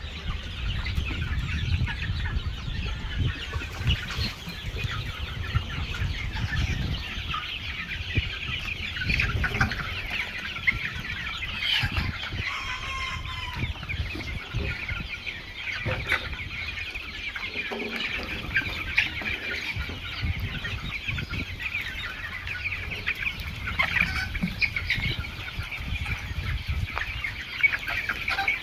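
A flock of chickens clucking and cheeping without pause, many short high calls overlapping, over a low rumble.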